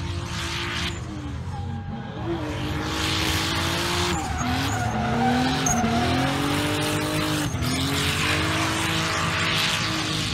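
Car engine revving up and down several times while its tyres squeal in a drifting slide.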